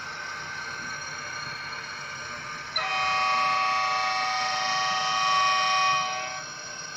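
Horn of a ZSSK class 381 electric locomotive model, sounding a steady chord of several tones that starts suddenly about three seconds in and holds for about three and a half seconds, over a faint steady running whine from the model.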